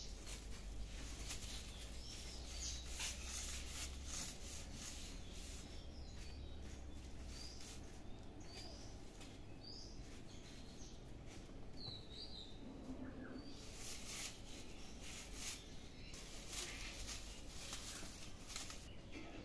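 Strips of plastic on a stick toy rustling and crinkling in repeated short bursts as they are waved and batted, with small birds chirping briefly now and then in the background.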